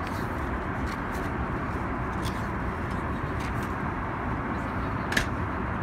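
Steady cabin noise of an Airbus A380 airliner in flight, with a few faint paper rustles and clicks as the pages of a printed menu are turned; the sharpest click comes about five seconds in.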